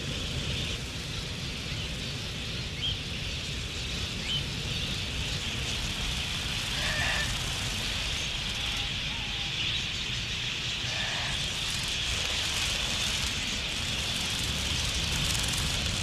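A large flock of wild budgerigars chattering: a dense, steady high twittering over a low rumble.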